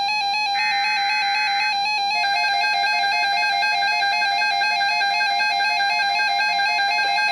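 NOAA Weather Radio Emergency Alert System tones: the harsh digital SAME header bursts, about a second long with short gaps, under a rapidly warbling electronic alarm tone that sounds throughout.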